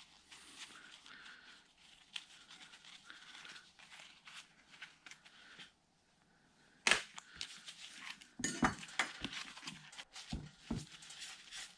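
Small metal clicks and scrapes of a hand tool working the socket head cap screws of the bearing cap on a Bridgeport mill head's gear housing: faint scraping, a sharp click about seven seconds in, then a run of quick ticks and scrapes near the end.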